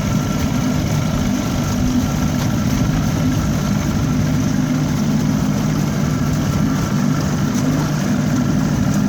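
1970s Evinrude 25 hp two-stroke outboard motor running steadily, with no change in pitch. The owner suspects it is firing on only one cylinder, making about half power with no upper end.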